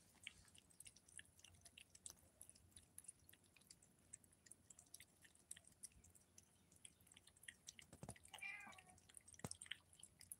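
Kittens and an adult cat eating wet cat food from a plate: faint, wet chewing clicks throughout, with a short meow about eight seconds in.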